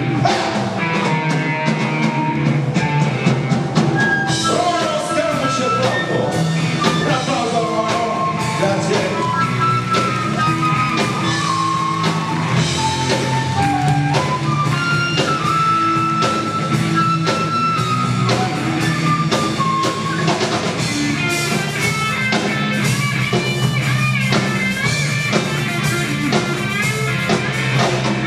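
Live rock music: a flute plays the melody in held notes that step up and down, over a steady low bass line and drums.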